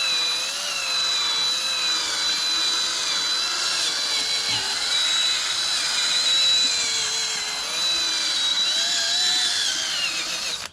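Cordless drill running a wet sandpaper pad against a plastic headlight lens. The motor's pitch wavers a little as the pad is pressed on, and the drill stops abruptly at the very end.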